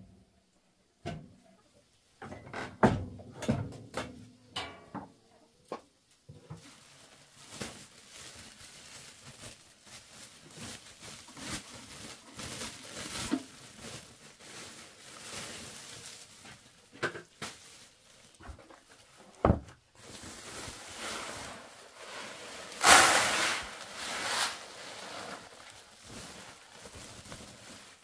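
Handling sounds with no machine running: a series of knocks and clunks at the grinding machine, then rustling of a woven sack and a loud hissing rush of ground corn poured into a plastic basin about three-quarters of the way through.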